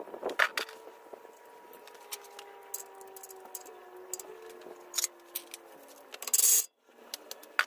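Hand tools clinking and tapping on a front wheel hub as a ratchet and Allen socket are fitted to the hub bolts: scattered sharp metallic clicks, with a louder half-second scrape or rasp near the end that cuts off abruptly.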